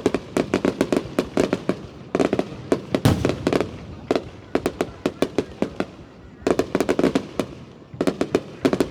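Aerial fireworks bursting in rapid volleys, many sharp bangs a second, coming in clusters about a second long with brief lulls between them.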